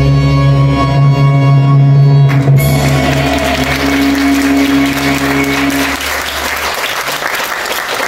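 Music ending on long held notes that stop about six seconds in. An audience starts applauding about two and a half seconds in and keeps clapping after the music stops.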